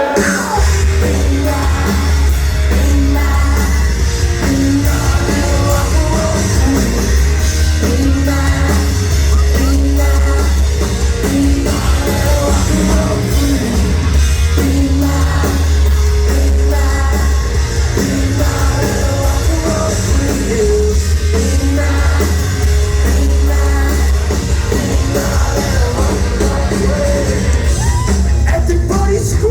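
Live rock band playing loud, with singing over a heavy, booming bass line, heard as a bass-heavy audience recording.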